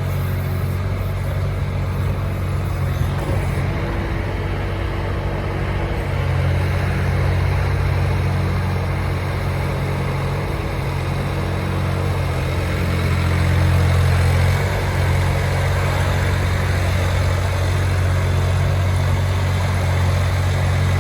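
Sherpa WE18 mini excavator's diesel engine running steadily with a deep, even note. It grows louder about six seconds in and again briefly a little after the middle, as the engine takes more load.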